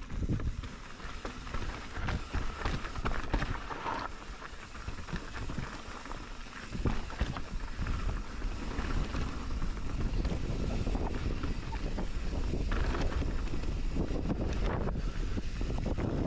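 Wind buffeting the microphone over the rolling rumble of mountain-bike tyres on a dirt trail, with frequent knocks and rattles from the bike as it rides over rough ground.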